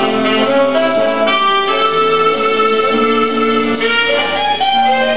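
Live instrumental music: piano accompanying a melody of long held notes.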